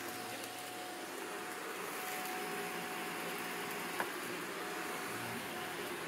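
Shark vacuum cleaner running steadily with a steady whine as its floor head sucks up wood-shaving pet bedding, with one sharp click about four seconds in.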